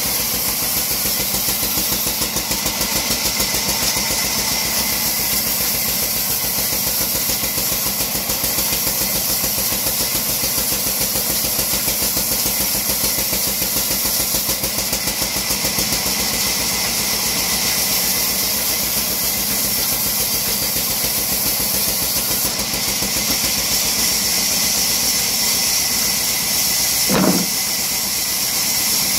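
48-inch vertical wood bandsaw running steadily as a log on its carriage is pushed through the blade: a constant hum under a strong high hiss. A short squeak near the end.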